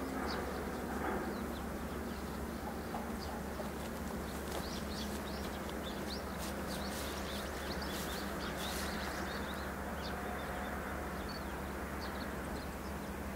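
Many short, high bird chirps over a steady, faint rumble from the four engines of a Boeing 747-400 freighter approaching to land. The chirps are busiest in the middle stretch, and the rumble does not grow louder.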